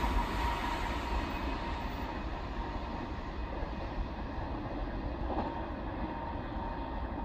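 Kintetsu electric train receding after passing, its running noise dropping off at once to a steady distant rumble with a faint thin whine. The higher sounds slowly fade away.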